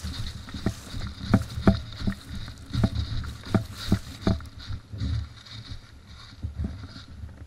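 Footsteps crunching through dry leaf litter at about two steps a second, with the rumble and knocks of a body-worn camera jostling as the wearer moves. The steps thin out and soften over the last few seconds.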